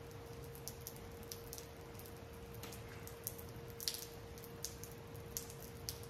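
Rain falling outside: a soft steady hiss with irregular drips and ticks of drops striking hard surfaces, one louder tick about four seconds in. A faint steady hum runs underneath.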